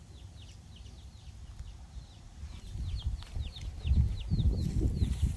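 Young chickens peeping: a steady run of short, high, falling peeps, about three or four a second. A louder low rumble comes in about four seconds in and lasts to the end.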